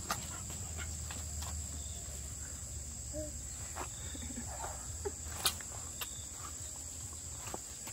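Steady high-pitched drone of insects, with a few scattered clicks and a sharper click about five and a half seconds in.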